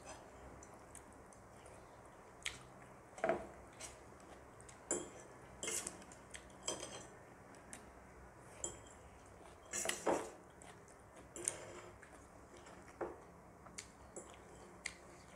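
Metal spoon and fork scraping and clinking against a steel serving tray as noodles are scooped up, in short, irregular clicks and scrapes.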